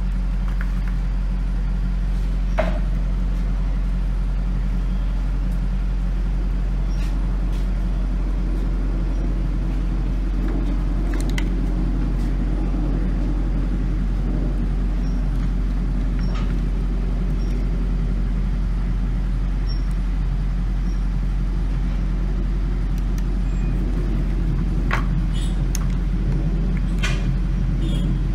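Steady low hum and rumble of background machinery, with a few faint light clicks scattered through it.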